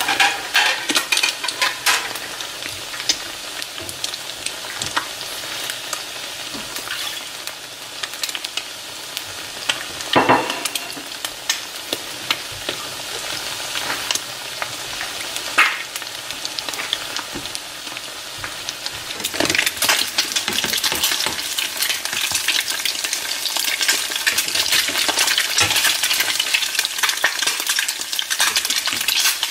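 Fried eggs sizzling in a nonstick frying pan: a steady hiss with frequent crackling pops, louder in the last third.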